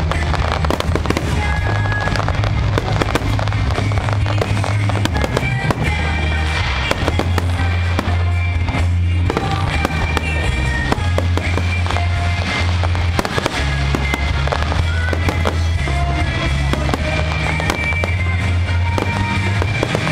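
Aerial fireworks bursting in quick succession, with many sharp bangs and crackles, over loud music with held bass notes.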